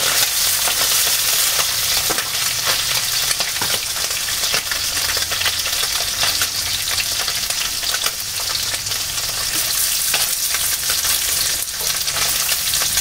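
Pieces of pindang tongkol (boiled tuna) sizzling steadily in hot oil in a frying pan, half-frying, with scattered clicks and scrapes as they are stirred and turned.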